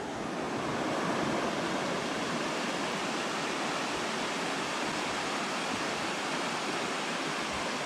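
Steady rushing of a fast river's rapids, whitewater running over rocks.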